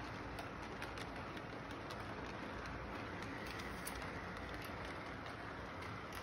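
Model train cars rolling along the track, with light, irregular clicking of wheels over the rail joints over a steady background hiss.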